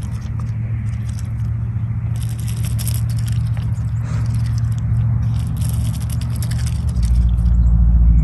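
White domestic duck pecking and dabbling at a pile of dry corn kernels: quick crackly clicks and scrapes of its bill in irregular runs, over a steady low rumble.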